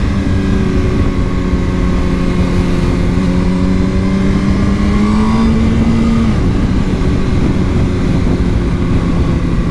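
Motorcycle engine running under steady throttle while riding, its pitch slowly rising and then dropping about six seconds in as the revs fall, with a steady wind rush on the microphone.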